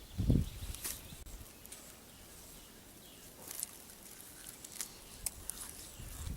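Faint outdoor ambience with light rustling and scattered small clicks, broken by one low bump about a quarter second in.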